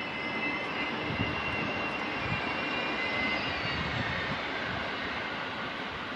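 A train running past on the rails: a steady rumble with a high-pitched whine that fades out about four seconds in.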